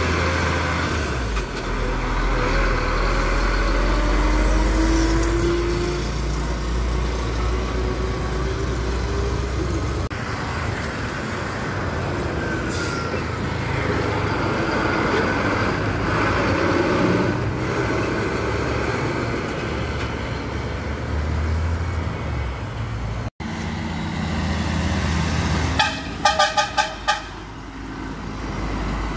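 Heavy diesel trucks passing close by, their engines running with a deep rumble over road noise, one pass after another. Near the end a truck horn gives a quick series of about six short toots.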